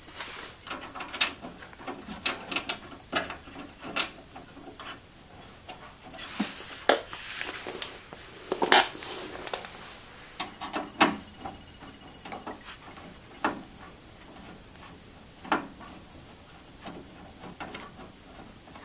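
Irregular clicks, knocks and scrapes of a desktop computer's sheet-metal case being handled as its side panel is closed and screwed on, with a stretch of rubbing about six seconds in.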